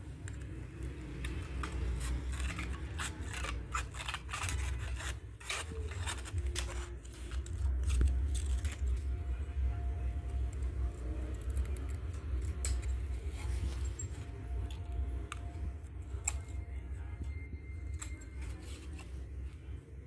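Scissors cutting a mica waveguide-cover sheet for a microwave oven: a run of short, crisp snips, most frequent in the first several seconds and more spaced out later.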